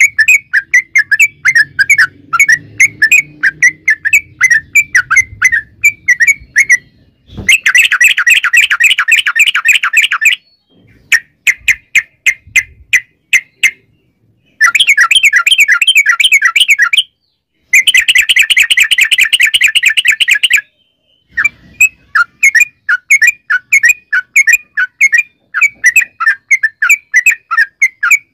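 Yellow-vented bulbul singing: a string of quick repeated bubbly notes, several a second, broken by three dense bursts of rapid chattering, each two to three seconds long, a quarter of the way in and twice past the middle.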